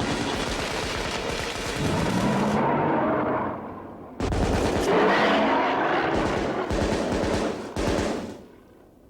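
Volleys of rifle fire from several hunters shooting at a dinosaur, mixed with the dinosaur's drawn-out roaring cries. The shots come suddenly and close together from about four seconds in and stop shortly before the end.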